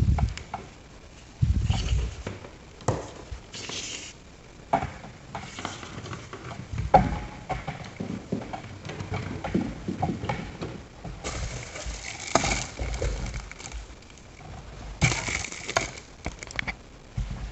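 Handling noise of black cables being pushed and pulled through a plastic brush wall plate: irregular clicks and knocks of plastic, with a couple of longer scraping rustles in the second half as the cables rub through.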